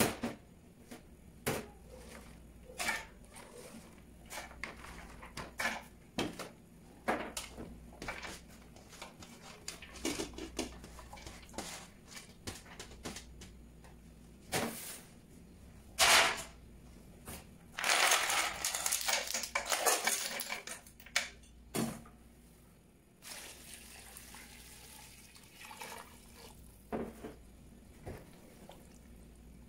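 Broth ingredients going into a large stainless steel stockpot: a string of separate clinks and knocks of kitchenware, then, about 18 seconds in, a dense clatter lasting a few seconds as ice cubes are tipped into the pot.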